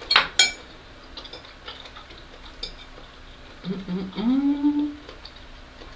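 Fork and knife clinking twice against a ceramic plate in the first half second, then light scattered taps of cutlery. About four seconds in, a closed-mouth "mmm" hum of enjoyment while chewing, rising in pitch.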